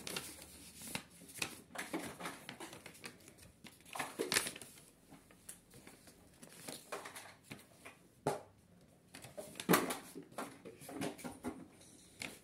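Paper craft parts being handled and pressed together by hand: scattered rustles, crinkles and light taps, with a sharper knock about four seconds in and another near ten seconds.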